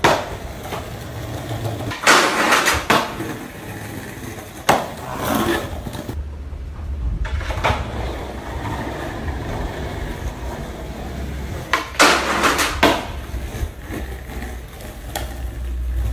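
A skateboard rolling over a tiled floor, its wheels rumbling, with several sharp clacks of the board striking, around two seconds in, near five seconds and about twelve seconds in, from attempts at a 50-50 grind to manual on a bench. The rolling grows heavier in the second half as the board comes closer.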